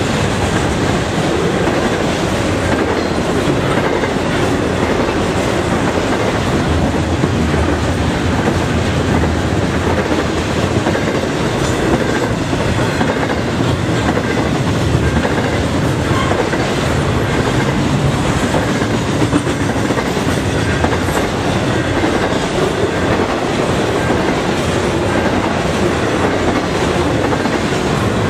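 Double-stack intermodal well cars rolling past at speed: a loud, steady rolling noise of steel wheels on rail that keeps an even level throughout.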